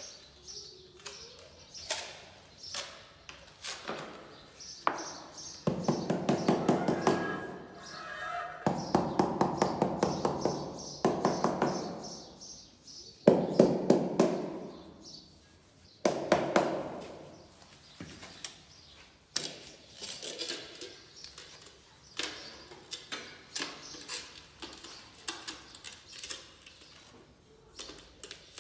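Hand work on a skirting tile and cement mortar: a trowel and hands scraping and tapping, in several bursts of rapid scraping a second or two long, with scattered knocks between them.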